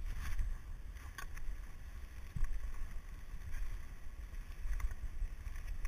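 Wind rumbling on the camera microphone while skiing downhill on rock skis, under the hiss of the skis sliding over snow, with a few faint short scrapes.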